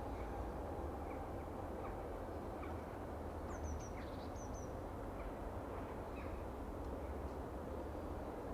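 Birds chirping off and on with short high calls, including a quick run of higher notes near the middle, over a steady low background rumble.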